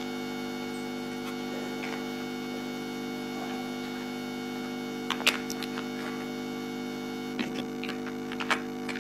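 Large plastic building blocks clicking and knocking as a child handles them and presses them together: a sharp click about five seconds in and several more near the end, over a steady electrical hum.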